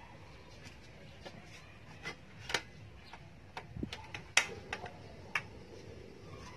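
A series of light, irregular clicks and taps from items being handled on a table, clustered between about two and five and a half seconds in, the sharpest about four and a half seconds in.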